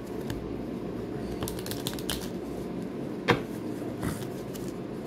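A deck of Spanish-suited playing cards being shuffled by hand on a cloth-covered table, with light clicks and flicks of card edges. One sharper click about three seconds in is the loudest, all over a steady low hum.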